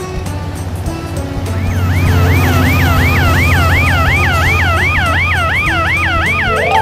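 Cartoon emergency siren, a fast swooping yelp about three times a second, coming in about a second and a half in over background music with a steady low bass.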